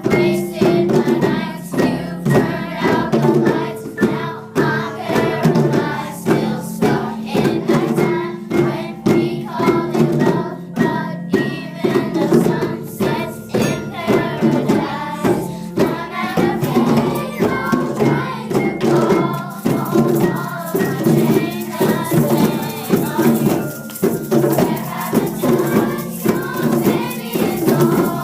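A group of voices singing a pop song over a steady beat, with rattling hand percussion keeping time.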